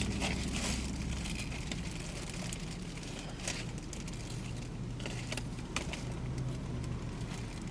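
Handling noises: scattered crinkles and light clicks, like food wrapping being handled, over a steady low hum.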